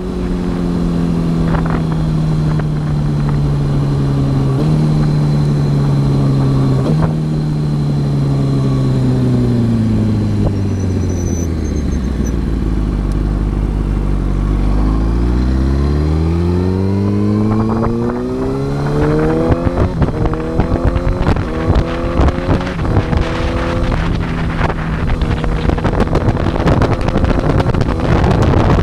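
Inline-four engine of a 2008 Yamaha R1 through a TOCE aftermarket exhaust, heard on board. The engine note falls as the bike slows, with two short jumps up in pitch along the way, then climbs under acceleration about 16 seconds in and holds steady. The sound turns choppier and rougher over the last several seconds.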